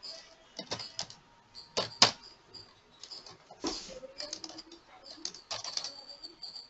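Computer keyboard typing in short irregular bursts of key clicks, with a few sharper, louder clacks, the loudest about two seconds in. Behind it a faint high-pitched chirp repeats a little over twice a second.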